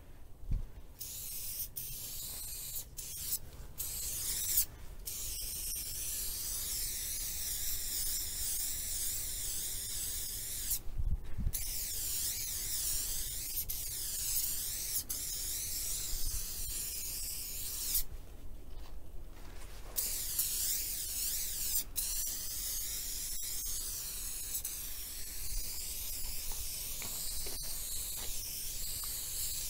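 Aerosol spray paint can spraying in long hissing strokes, broken by short pauses where the nozzle is let go, the longest about two seconds.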